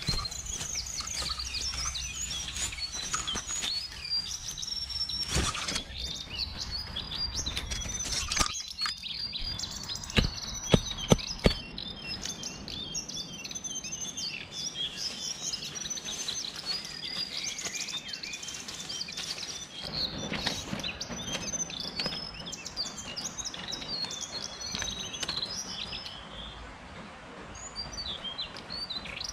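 Many small wild birds chirping and singing throughout. About a third of the way in, four sharp knocks follow each other quickly, a little under half a second apart, and are the loudest sounds.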